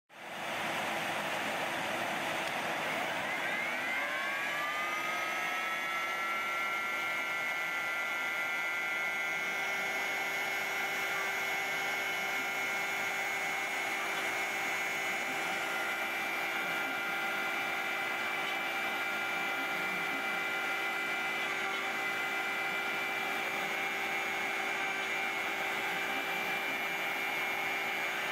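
CNC machine's spindle spinning up with a rising whine a few seconds in, then holding a steady high whine while its end mill cuts into plywood, over a steady noise.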